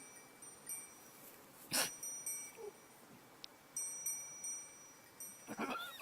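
An animal's call with wavering pitch near the end, after a short noisy burst about two seconds in. Faint high ringing tones come and go throughout.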